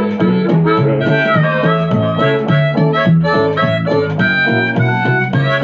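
Amplified harmonica solo, played cupped against a microphone, over a rhythmic acoustic guitar accompaniment with a steady pulsing bass line.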